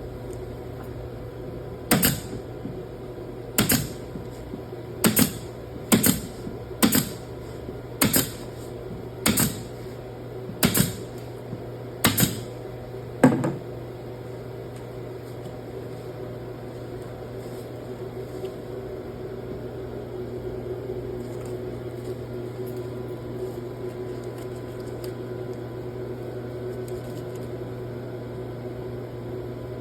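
About ten sharp knocks or snaps, one every second or so, over the first half, then only a steady mechanical hum with a low drone.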